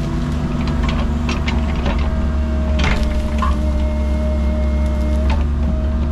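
Cat 306 mini excavator's diesel engine running steadily with a hydraulic whine, while wood cracks and snaps several times as the machine works into pine trees, the loudest crack about three seconds in.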